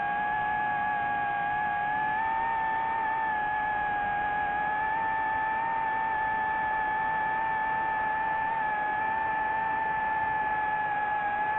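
DJI FPV drone's motors and propellers whining in flight: a steady high-pitched hum with one overtone, its pitch wavering slightly up and down with the throttle.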